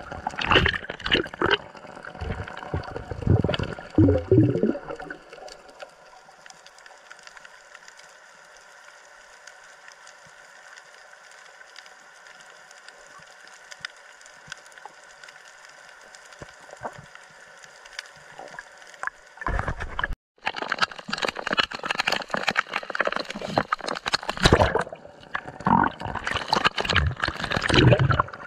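Water splashing and gurgling close to the microphone, loud and irregular at the start and again in the last third, with a quieter stretch of faint steady hum between.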